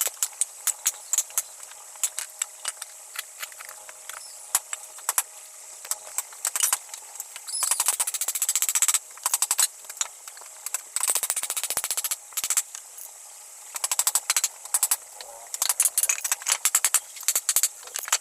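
Irregular clusters of rapid, sharp clicks and taps from woodworking.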